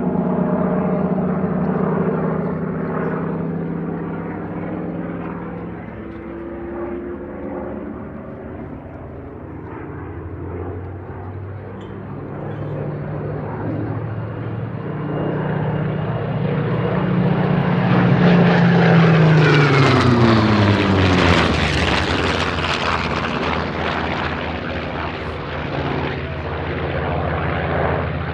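Piston engines of two WWII fighters, the Focke-Wulf Fw 190 A-8's radial and a Spitfire's, droning as they manoeuvre overhead. About two-thirds of the way through, one fighter passes close: it grows loudest and its engine pitch drops sharply as it goes by. Afterwards the drone carries on more steadily.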